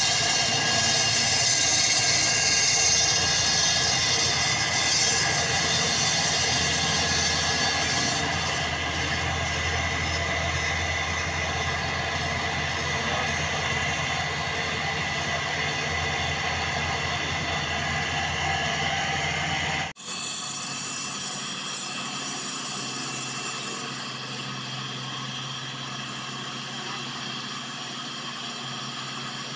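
Walk-behind concrete floor saw with a petrol engine running steadily while its water-fed diamond blade cuts a concrete floor. About two-thirds through the sound breaks off for an instant and comes back a little quieter, with less low rumble.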